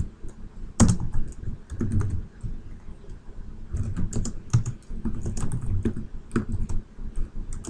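Typing on a computer keyboard: irregular keystrokes, a few at first, a pause of about a second and a half, then a quicker run of keys.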